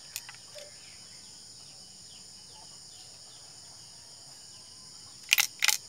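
Steady high-pitched chorus of insects in the background. A faint click just after the start, then two sharp clicks close together near the end, from the speargun being handled after its trigger guard is screwed on.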